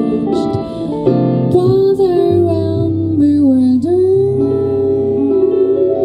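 A female jazz vocalist singing a slow melody into a microphone, with held notes and slides, over a small band of electric guitar, double bass and keyboard. The sung line dips lower about halfway through and then rises and holds again.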